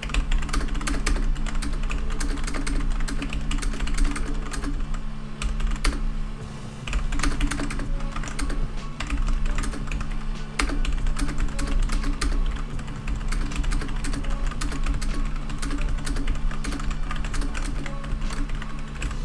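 Continuous fast typing on a Logitech G810 mechanical keyboard with Romer-G switches: a dense, clicky clatter of key presses, with a short pause about six seconds in.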